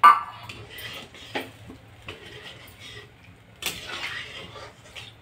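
Metal ladle knocking and scraping in a steel kadai while stirring thick curry gravy. A sharp clack right at the start is the loudest, followed by scattered light knocks and a longer scraping stretch a little past halfway.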